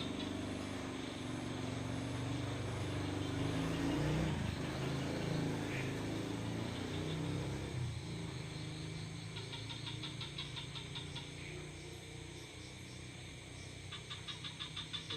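Night ambience: a low rumble swells to a peak about four seconds in and fades by about eight seconds. Bursts of fast, high-pitched pulsed chirping from insects or frogs come twice, near the middle and again near the end.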